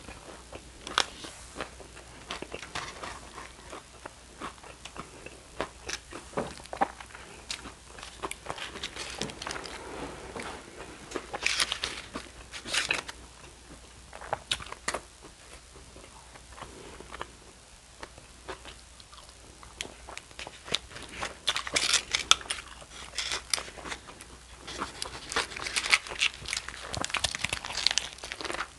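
Close-miked eating sounds: chewing with wet mouth clicks, and bites into a foil-wrapped gyro with the aluminium foil crinkling. The sounds come in several louder clusters of crackling and crunching.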